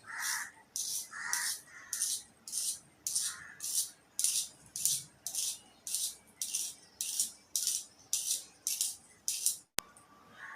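Pencil wood being crunched close to the microphone: a crisp crunch repeated evenly about twice a second. It stops a little over nine seconds in and is followed by a single sharp click.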